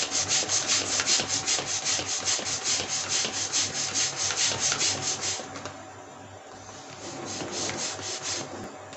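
Hand air pump stroked rapidly, about five strokes a second, inflating a balloon. The pumping stops about five seconds in, then resumes for a second or so near the end.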